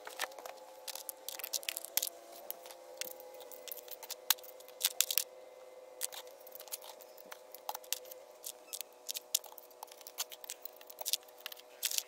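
Small stones clicking and knocking against one another as they are picked out of a rubber basin and set by hand around a plastic drain pipe, in irregular clacks, over a faint steady hum.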